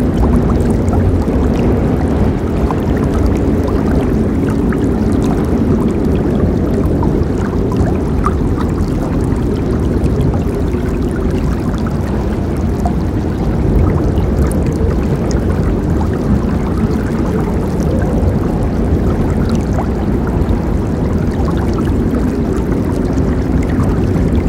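Forest river flowing steadily, a deep continuous rush of water with small splashes and gurgles on top.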